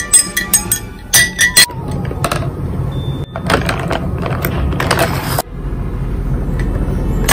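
Glass straw clinking against a glass of iced coffee and its ice: a few sharp, ringing clinks in the first second or so. Then pens rattling and scraping as they are pulled from a plastic desk organizer.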